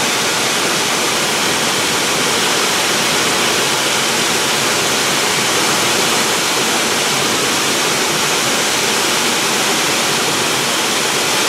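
Steady, loud cabin noise of a 1960s four-seat light airplane in flight, with engine and airflow blended into an even rushing hiss, while descending to land.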